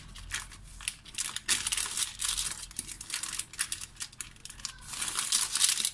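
Parchment paper crinkling and rustling as hands press and smooth it around a rolled sponge cake, growing louder near the end.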